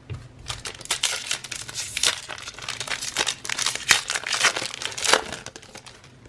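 Plastic wrapper of a football trading-card pack crinkling and crackling as it is handled and torn, a dense run of irregular crackles that stops about five seconds in.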